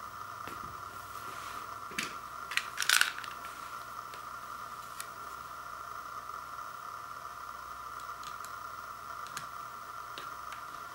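A utility knife slitting the plastic shrink-wrap along the edge of a sealed vinyl LP sleeve: a few sharp clicks and a short crinkly burst about two to three seconds in, then only faint ticks, over a steady high background hiss.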